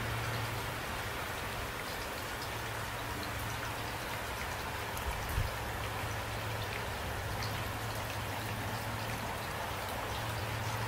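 Steady rain falling at night, an even hiss of drops with some individual drop patter. A steady low hum runs beneath it, and there is a brief soft low thump a little over five seconds in.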